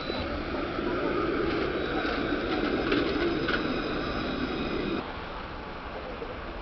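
A Bordeaux tram running along its track, a steady rumble with a faint high whine. The noise cuts off abruptly about five seconds in, leaving quieter background noise.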